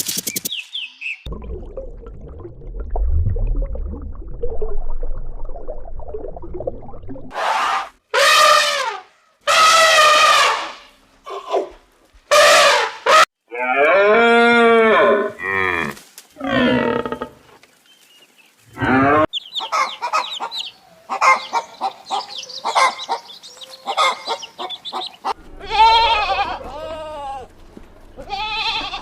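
Farm animals calling: a low rumbling for the first several seconds, then a run of loud, drawn-out calls that rise and fall in pitch, some lasting over a second.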